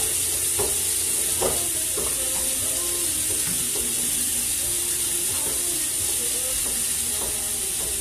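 Pork chops frying in hot grease in a pan on an electric stove: a steady sizzle with grease popping, and a couple of light knocks in the first two seconds.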